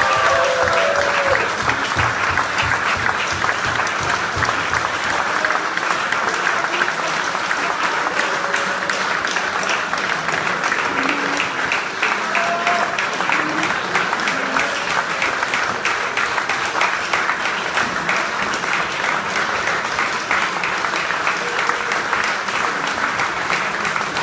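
Audience applauding: many hands clapping steadily and without a break.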